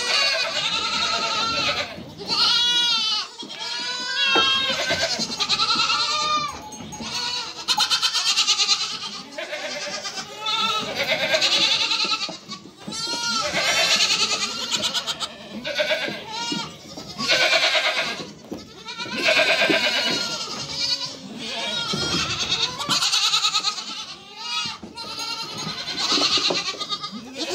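A pen full of young goat kids bleating, many overlapping calls that rise and fall in pitch, one after another with hardly a pause.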